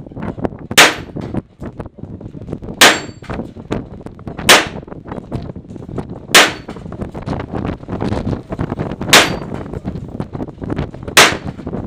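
Six handgun shots fired one at a time, about two seconds apart, with a faint metallic ring from steel plate targets after some of them.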